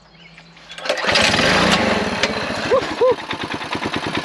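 A mini bike's HiSun 196cc single-cylinder engine being pull-started: it catches about a second in and runs with a rapid, even firing beat. This is its first start on a newly fitted Mikuni VM22 clone carburettor.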